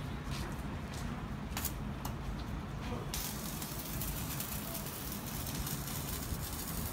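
Electric arc welding on steel: a few sharp crackles in the first two seconds, then a steady crackling sizzle of the welding arc from about three seconds in, over a low rumble.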